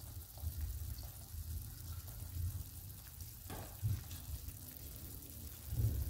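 An egg frying in oil in a nonstick pan: a steady soft sizzle with a low rumble beneath it, and a couple of short crackles, one about halfway and one near the end.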